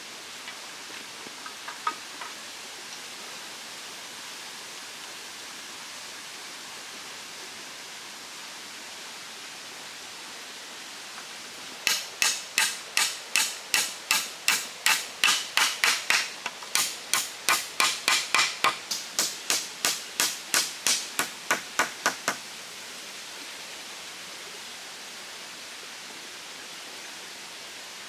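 A hand tool striking a bamboo pole in a quick run of sharp, evenly spaced knocks, about three a second for some ten seconds, as a crosspiece is fixed to a bamboo shelter frame. A stream runs steadily in the background.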